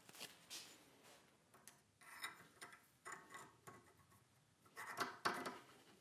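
Faint, short metal scrapes as a knife's tang is slid and worked into the filed tang hole of a wrought-iron guard held in a vise, the loudest scraping about five seconds in.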